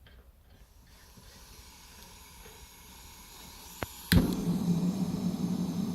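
MAP gas hissing into a mailbox forge, growing slowly louder, then a click of the electric igniter and the burners lighting suddenly about four seconds in. The lit burners then run steadily, a loud even rush of flame with a low hum under it.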